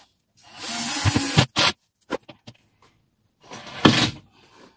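Cordless drill driver running in two bursts of about a second each, driving screws into a timber frame, with a few short clicks of handling between.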